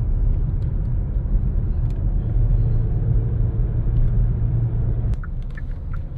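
Low, steady road and engine rumble inside a moving car's cabin, easing off about five seconds in as the car slows.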